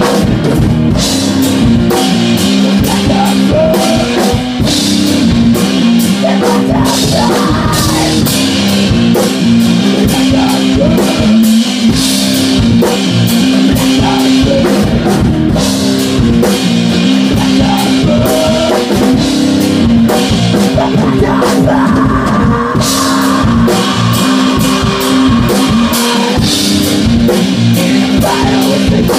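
A rock band playing live: a drum kit and an electric guitar, with a singer at the microphone.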